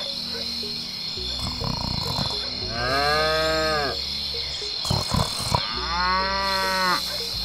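A cow mooing twice, two long moos about three seconds apart, each dipping and then rising in pitch, with a few sharp knocks between them. Underneath runs a steady background of chirping insects.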